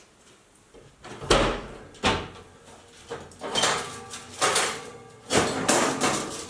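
Oven door opened and the wood taken out: a series of knocks, clunks and scraping clatters, the loudest about a second in and again near the end.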